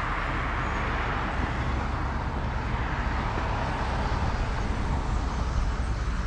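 Steady road traffic noise: vehicles passing with a continuous rushing of tyres and engines.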